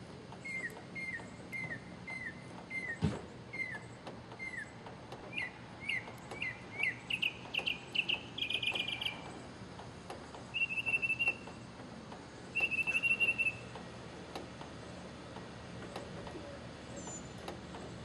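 Northern mockingbird singing. It gives a run of short down-slurred notes at about two a second, then quicker rising notes that run into a rapid buzzy trill, then two short trilled phrases a second apart. A single sharp click comes about three seconds in.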